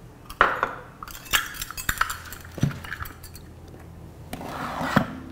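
Metal measuring cup clinking and knocking against a stainless steel mixing bowl while flour is measured in: a series of sharp clinks, the loudest about half a second in and another near the end.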